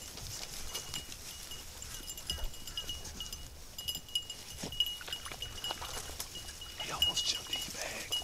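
Beagles baying in the distance as they run a rabbit's track, faint wavering calls, over a thin high tone that pulses on and off.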